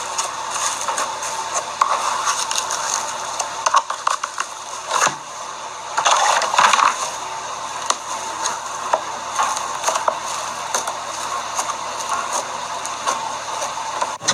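Crunchy slime being squeezed and worked by hand, giving a dense, continuous run of fine crackles and pops, loudest about 6 to 7 seconds in.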